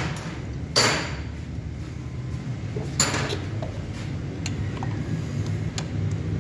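Two sharp knocks, about a second apart from the start and again about three seconds in, with a few lighter clicks, as hand tools and parts are handled in a car's engine bay. A steady low hum runs underneath.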